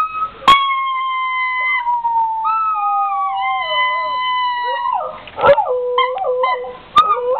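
A dog howling along to a toy horn. One long drawn-out howl slides down in pitch in steps, then shorter broken howls follow near the end. A sharp knock comes about half a second in.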